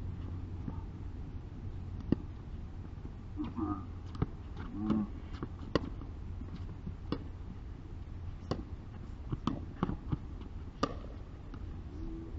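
Pickleball rally: hard paddles popping against the hollow plastic ball, about ten sharp pops at irregular intervals of roughly a second, with a few brief shouts from the players partway through.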